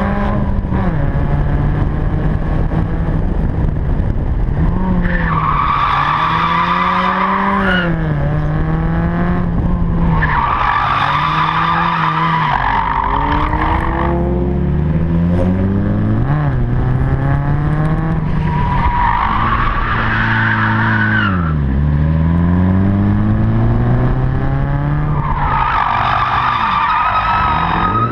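A car engine revving up and dropping back again and again under the driver's throttle, with the tyres squealing in four long stretches as the car slides sideways through the corners of a drift run.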